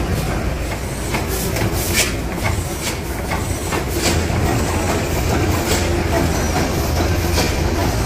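1917 Snow Holly Works tandem double-acting natural-gas compressing engine running slowly, about 100 rpm. It makes a steady low rumble with sharp clacks every half second to second and a half.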